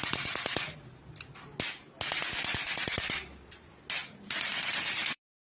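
Joints cracking and popping during a chiropractic adjustment, sharp clicks in quick runs, amid three bursts of hiss about a second long. The sound cuts off suddenly near the end.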